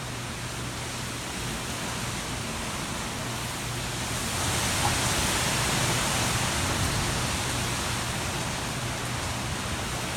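Hurricane wind and rain rushing steadily. A stronger gust swells in about four seconds in and eases off slightly toward the end.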